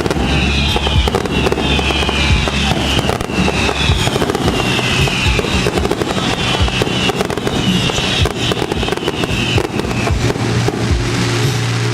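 Fireworks finale: a rapid barrage of bangs and crackles, with a high falling whistle repeating about once a second, over live band music.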